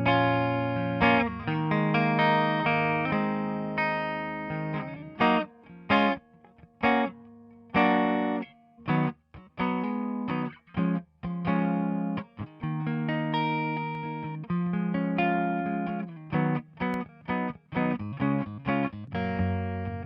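Electric guitar playing chords through the Overloud TapeDesk tape-emulation plugin. Held, ringing chords give way about five seconds in to short, choppy stabs with brief gaps, and then to held chords again near the end.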